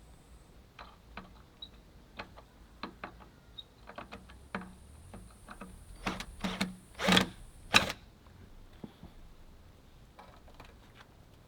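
Irregular taps and knocks of bricklaying work, trowel and brick on mortar, with a few louder scraping knocks about six to eight seconds in.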